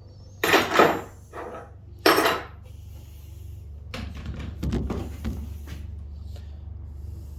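Vintage hand tools being handled on a bench: a few loud clanks and knocks in the first two seconds, then a run of smaller knocks and rattles about four seconds in.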